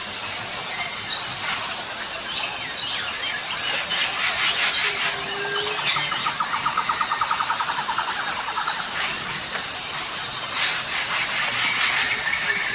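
Forest insects and birds: a steady high insect drone that pulses on and off in a regular pattern, with scattered bird chirps and a rapid trill lasting about three seconds in the middle.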